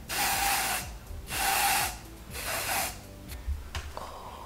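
Aerosol can of lace tint spray hissing in three short sprays, each under a second, with brief pauses between.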